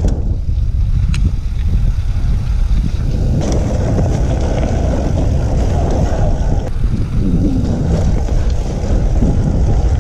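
Wind buffeting the microphone of a bike-mounted action camera, with mountain-bike tyres rumbling over a dry dirt singletrack. The rumble is steady and heavy in the low end, shifts abruptly twice, and has one small click about a second in.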